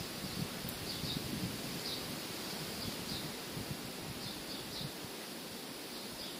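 Wind blowing through leafy trees, a steady rustling with uneven gusts, and short high chirps of a small bird now and then.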